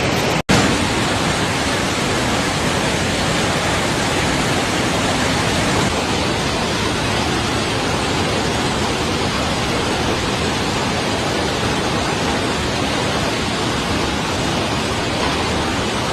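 Floodwater rushing in a steady, loud, even wash of noise, with a brief break about half a second in.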